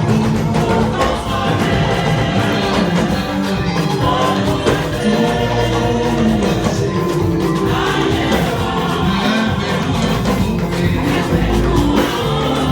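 Church choir singing an anthem, held sung notes over instrumental accompaniment with a steady beat.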